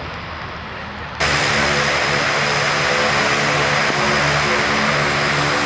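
C-27J Spartan's twin turboprop engines and propellers running with a steady hum of several tones, jumping suddenly to much louder about a second in.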